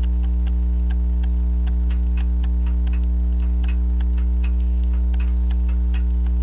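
French crystal regulator clock's open escapement with jewelled pallets ticking fast and unevenly: the clock is running but out of beat. A strong steady mains hum lies under the ticks.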